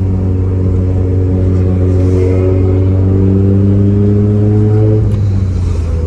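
Mitsubishi Lancer Evolution's turbocharged four-cylinder engine pulling under steady acceleration, its pitch rising slowly, then dropping near the end as it changes gear.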